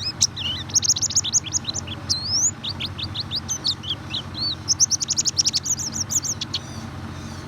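White-eye (pleci) song: a fast twitter of high chirps and down-slurred notes, stopping about a second before the end, used as a pancingan lure song to prompt a reluctant pleci to sing. A low steady hum runs underneath.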